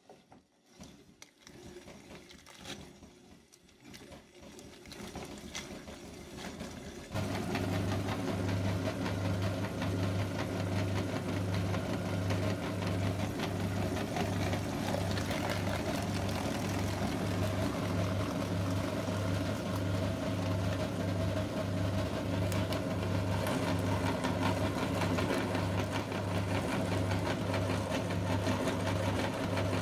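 Metal meat grinder running, grinding a water balloon full of Orbeez: a steady mechanical hum with an even, regular pulse that starts suddenly about seven seconds in. Before that, only faint irregular clicks and handling sounds.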